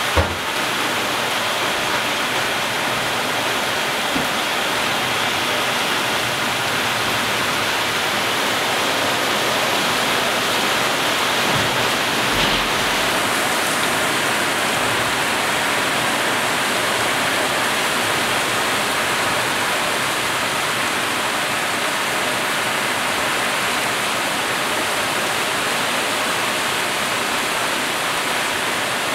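Heavy downpour of a summer thunderstorm: a steady, dense hiss of rain. A short knock sounds just after the start.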